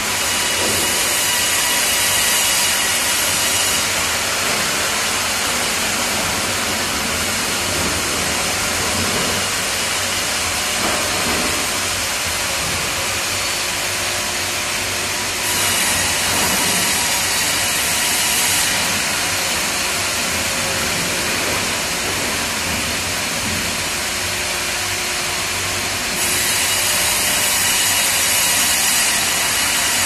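Fimaksan FI.120 tandem band sawmill and its log carriage running: steady loud machine noise, with a sharper, louder hiss rising three times for a few seconds each, around the start, about halfway and near the end, as the band blades cut through a log.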